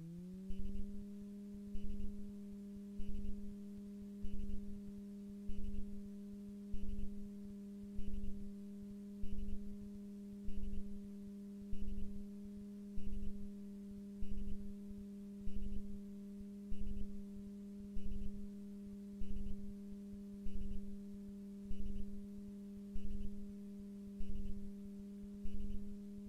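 Super Petrel amphibian's engine and propeller running at taxi power on the water, a steady low hum that rises slightly in pitch just after the start as power is added. Under it, a regular low pulse about once a second.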